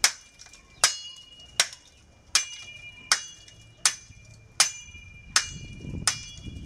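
Machete blade chopping the edge of a slate slab to trim it into shape: nine sharp, evenly spaced strikes, about one every three-quarters of a second, each with a brief ring.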